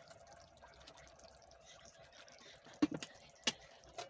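Thick red chicken stew simmering in a pot, its sauce bubbling with a faint steady hum beneath; three short sharp plops near the end as bubbles burst.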